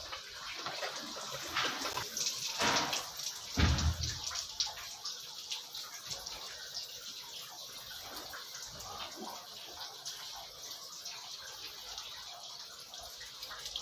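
Water running steadily out of an RO water purifier's tubing while the reverse-osmosis membrane is flushed, a faint even hiss. A couple of knocks, the loudest a low thump about four seconds in.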